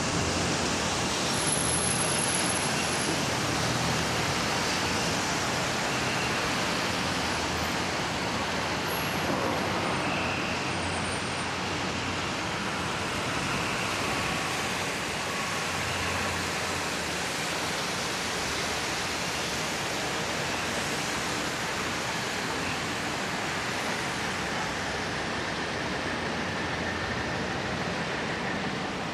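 Steady city traffic on a rain-wet street below, heard as a constant even hiss of tyres and engines.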